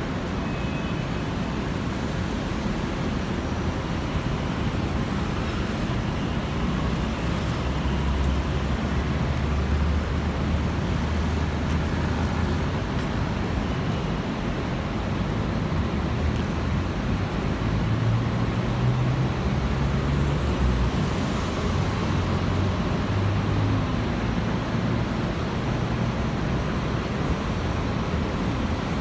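Road traffic: cars and vans running past and idling, a steady rumble with engine hum swelling about a third of the way in and again past the middle.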